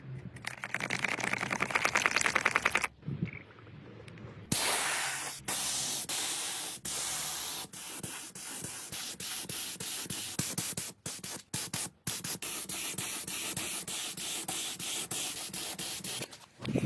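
Fast, rhythmic rubbing or sanding strokes for a couple of seconds, followed by a long spraying hiss that is cut by many brief stops. This is restoration work on old motorcycle parts.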